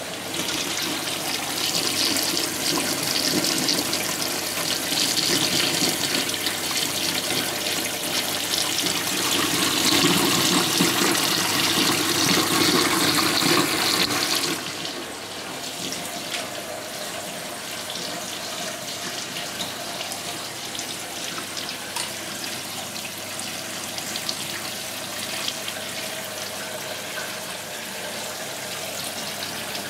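Aquarium water draining from the overflow pipe into a sump container, a steady splashing rush. It drops suddenly to a quieter steady flow about halfway through.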